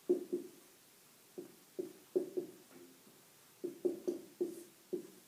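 A dry-erase marker writing on a whiteboard: about a dozen short strokes and taps in irregular bunches, with a brief squeak near the middle.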